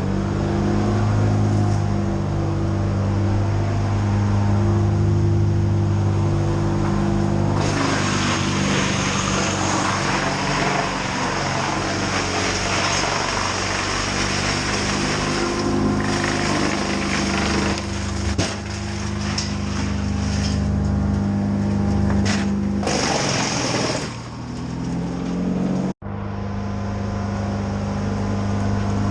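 A heavy crane engine running steadily at constant revs. A louder rushing noise is laid over it from about eight to sixteen seconds in and again briefly near twenty-three seconds. The sound cuts out abruptly for an instant about twenty-six seconds in.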